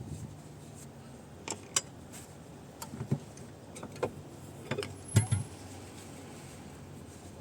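Irregular metallic clicks and knocks over a low steady hum, the loudest knock about five seconds in.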